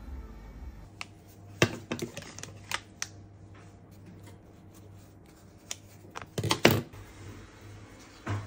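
Sharp taps and clicks of kitchen handling as marshmallows are sliced with a knife and set into a muffin tin. One group comes about one and a half to three seconds in, and a louder one around six and a half seconds.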